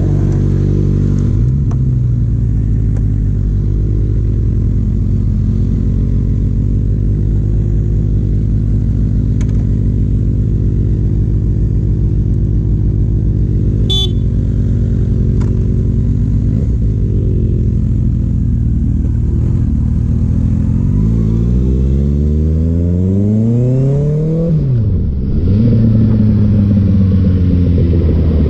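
Kawasaki ZX-6R's 636 cc inline-four running at a steady engine speed, then revving up under acceleration. Near the end the revs drop sharply on a gear change and climb again.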